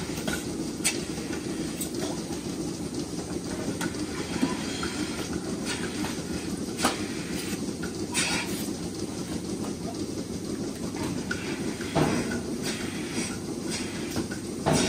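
Rotary milking parlour running: a steady low machine hum with a faint hiss, broken by a few sharp metal clanks from the milking units and stall fittings. The loudest clank comes near the end.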